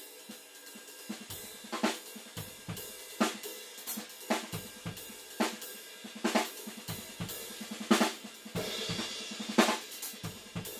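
Drum kit played in a steady groove from about a second in: bass drum, snare hits and a constant wash of cymbals, among them a 20-inch Avedis Zildjian Ping Ride under test. The recording is raw, with no sound processing.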